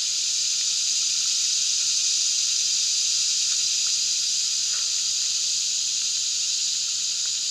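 Steady high-pitched drone of a summer insect chorus in the woods. A few faint clicks and rustles come from someone shifting and getting up.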